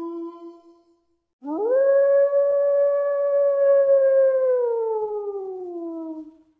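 Wolf howling. The tail of one howl fades out in the first second, then after a short pause a second, higher howl rises quickly, holds steady for about three seconds, then slides down in pitch and fades out.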